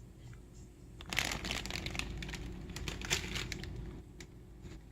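Plastic packaging crinkling and rustling as mozzarella cheese is added, starting about a second in and lasting about three seconds.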